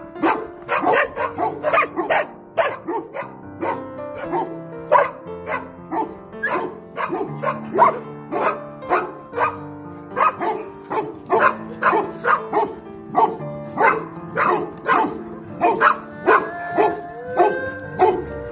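Dogs barking over and over at a quick pace, with background music of held notes underneath.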